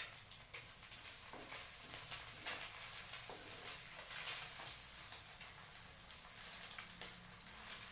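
Egg omelette sizzling in a frying pan, with scattered small crackles and pops. The edges are browning to golden.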